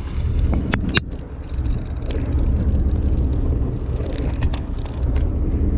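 Steady low rumble of a fishing boat's engine running, with a few sharp knocks about a second in as the rod and reel are handled.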